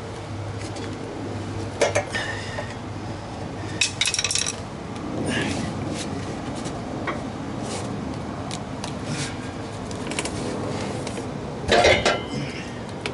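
Metal clanks and rattles from a Toyota Celica's old exhaust pipe and catalytic converter being worked loose by hand from its seized joint. A few sharp clanks stand out, about 2 and 4 seconds in, with the loudest cluster near the end.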